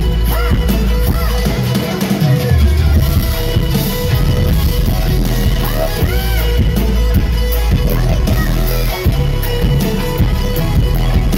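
Live pop song played at full volume through a festival sound system, with heavy bass and drums under a woman's lead vocal.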